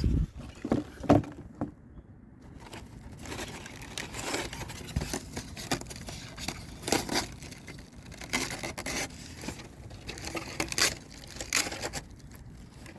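Box packaging being handled and rummaged through: an irregular run of short scrapes, rustles and crinkles.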